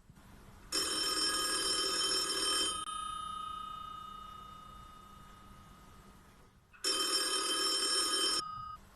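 A telephone ringing twice, each ring a bright multi-tone bell about one and a half to two seconds long. The first ring fades away slowly; the second follows about six seconds after the first began.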